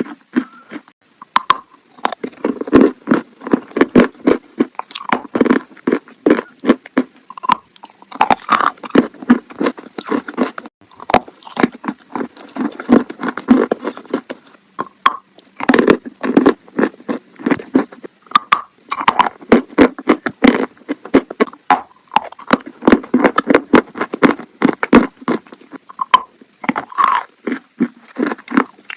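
A person biting and chewing crunchy chalk close to the microphone: runs of crisp crunches broken by short pauses.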